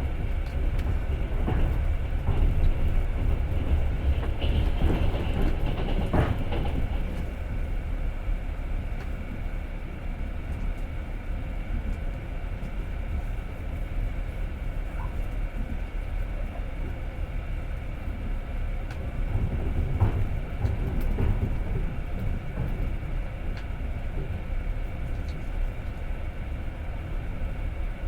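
Passenger train running on the rails, heard from inside the carriage: a steady low rumble with the clatter of the wheels over rail joints, heavier in the first few seconds and again about twenty seconds in.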